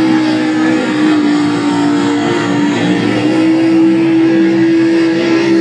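Lifted mud truck's engine held at high revs as its tires spin through the mud pit. Its pitch is nearly steady, dipping slightly about a second in and stepping back up a little after three seconds.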